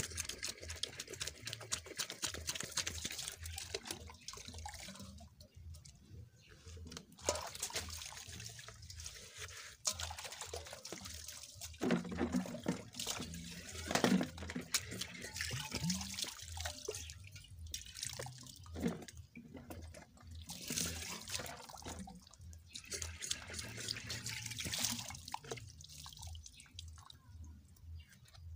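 Water splashing and dripping into a steel basin as a thermos flask is rinsed, shaken and emptied by hand, in stops and starts with a few louder splashes about halfway through.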